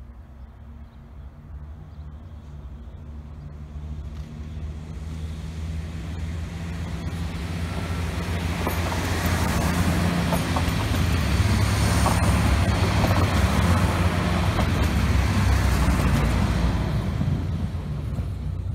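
A two-car diesel multiple unit approaching and passing close by: the low drone of its diesel engines grows steadily louder, joined by rushing wheel-and-rail noise and a few clicks from the wheels on the track as it goes past, then fades away near the end.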